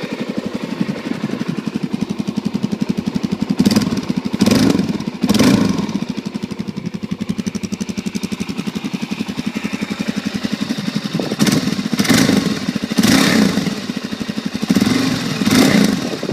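2006 Suzuki DR-Z400S's single-cylinder four-stroke engine idling through its stock exhaust, blipped with short revs: three in quick succession about four seconds in, and several more from about eleven seconds in.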